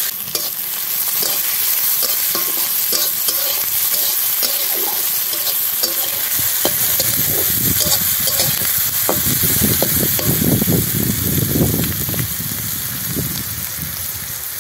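Sliced onions sizzling in hot oil in a kadai, a steady hiss. From about six seconds in a metal spatula stirs and scrapes them around the pan, the stirring strongest a little past the middle.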